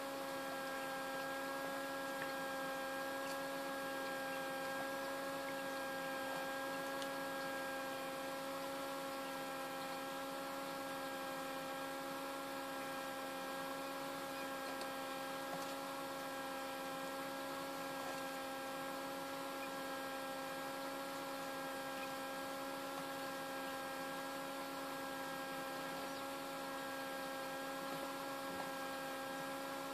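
Small tabletop egg incubator running: a steady electric hum from its fan motor, several even tones held at a constant pitch.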